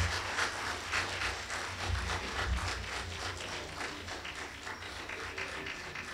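Audience applauding, thinning out toward the end, with a few dull low thumps.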